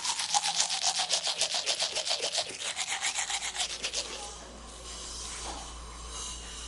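Fast rhythmic scrubbing or rasping strokes, about eight a second, stopping about four seconds in; a steady low hum carries on after them.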